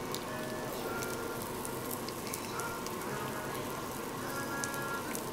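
Food sizzling and crackling on a tabletop barbecue grill: a steady hiss with many fine pops, under soft background music.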